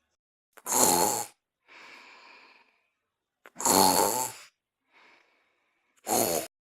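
Loud snoring from a sleeper: three loud snores about two and a half seconds apart, with softer breaths between them.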